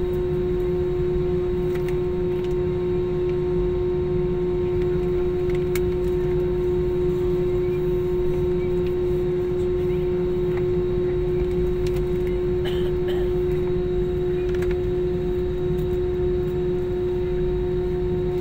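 Steady cabin drone of a jet airliner taxiing, with a constant hum tone over an even rumble. A few faint clicks come through.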